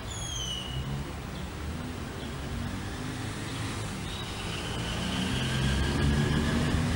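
Road traffic: a motor vehicle's low rumble growing louder, with a short falling whistle at the start.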